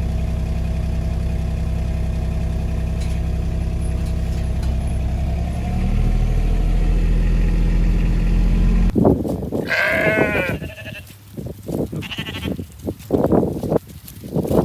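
An engine runs steadily for about nine seconds, rising slightly in pitch about six seconds in, then stops abruptly. Sheep then bleat several times.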